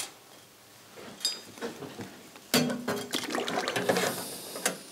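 Stainless-steel ultrasonic cleaner being loaded: a few light metal clicks, then a clatter about halfway through as the parts basket goes into the tank, and a plastic bag crinkling near the end.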